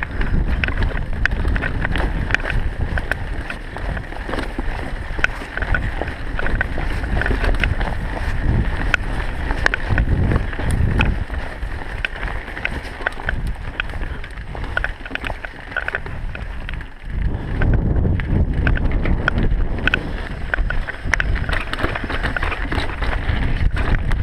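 Mountain bike riding down a dirt singletrack: wind buffeting the microphone over tyre noise on dirt, with frequent clicks and rattles from the bike going over bumps. Briefly quieter about two-thirds of the way in.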